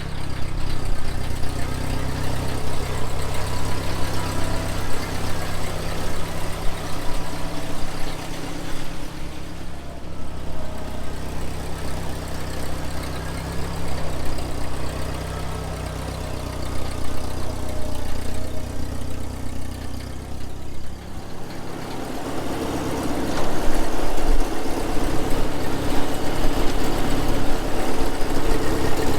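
Ford 2N tractor's four-cylinder flathead engine running steadily, then picking up and running louder about two-thirds of the way through.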